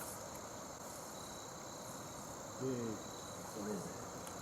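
Steady, high-pitched chorus of crickets, with faint human voices calling out briefly twice in the middle.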